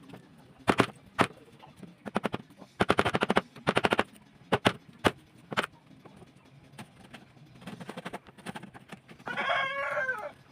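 A series of sharp knocks during the first six seconds, some single and some in quick runs of several taps, as from fitting a cupboard lock. Near the end a rooster crows once, for about a second.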